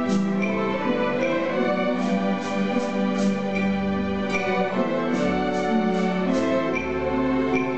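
Youth string orchestra of violins, violas and cellos playing a slow, lyrical piece in long held bowed chords that change every second or two, with shorter notes sounding above them.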